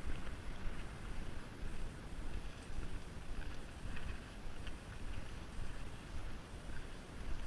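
Wind buffeting the camera's microphone, an uneven low rumble, with a few faint light ticks about halfway through.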